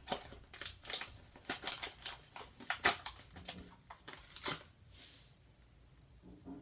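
Plastic and card toy packaging crinkling and crackling as it is handled and pulled open, in a run of quick rustles that stops about five seconds in.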